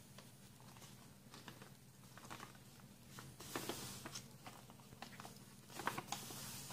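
Paper being folded into a paper airplane by hand: faint rustling and small crinkles, with a louder swishing crease pressed down about three and a half seconds in and again near the end.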